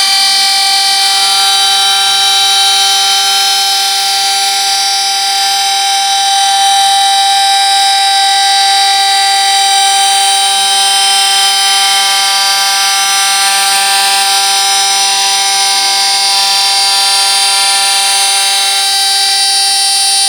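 CNC wood lathe running: a loud, steady whine with many overtones that starts suddenly, holds for about twenty seconds, then cuts off.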